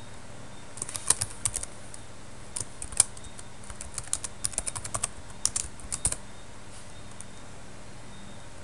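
Typing on a computer keyboard: irregular bursts of quick keystrokes, stopping about six seconds in.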